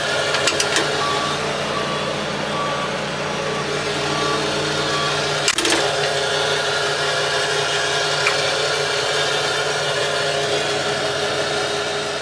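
Mantis 6010 crawler crane's diesel engine running steadily, with its travel alarm beeping at an even pace over it for about the first five seconds as the crane tracks onto the trailer. A single sharp clank about five and a half seconds in.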